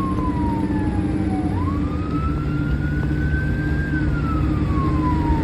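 Fire engine siren in a slow wail, gliding down in pitch for a couple of seconds and then sweeping back up, about one cycle every five seconds, over the steady rumble of the truck's engine and road noise.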